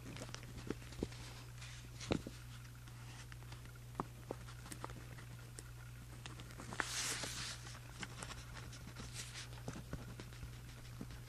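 Handwriting on journal paper: a pen scratching in short strokes with scattered small ticks and taps, the longest scratch about seven seconds in, over a steady low hum.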